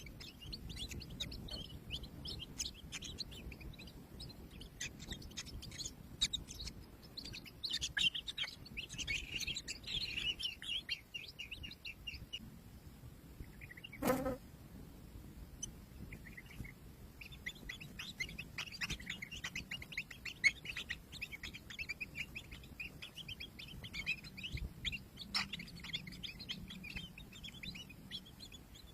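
Kingfisher nestlings inside the nest burrow making rapid, high, buzzy chirping chatter in long bouts. A single sharp knock comes about halfway through.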